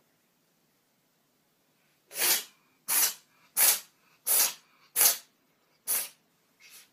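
A cat sneezing over and over, seven sharp sneezes in quick succession starting about two seconds in, the last one fainter.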